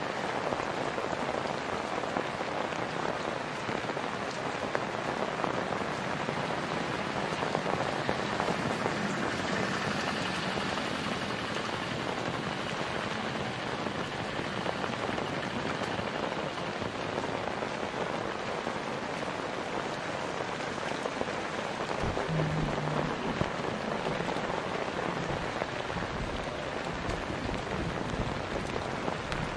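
Steady monsoon rain falling on a paved lane and the trees beside it, an even, dense hiss of many drops. A few low bumps come in the last few seconds.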